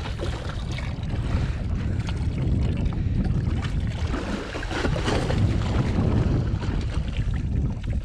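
Wind buffeting the microphone, with water sloshing around the boat's hull.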